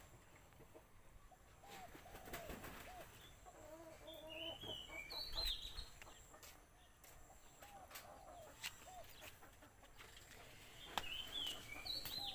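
Chickens clucking faintly in a series of short low calls, with brief high chirps twice, around the middle and near the end.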